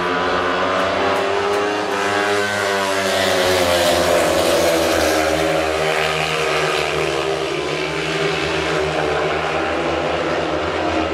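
Speedway racing engines on the track: several machines accelerating and backing off, their pitch rising and falling as they go round, loudest about four seconds in.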